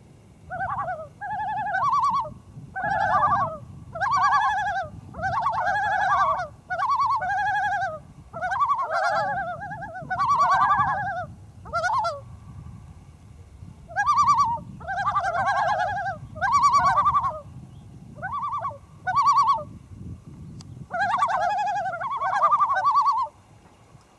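Common loons calling in a run of quavering, laughing tremolo calls, one call after another, with two short pauses.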